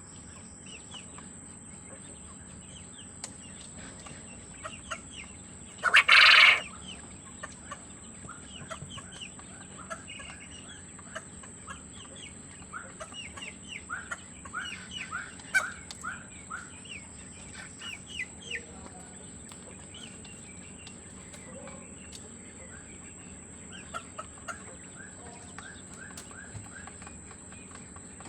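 Caged quail calling in many short soft chirps and clucks, with one loud burst about six seconds in.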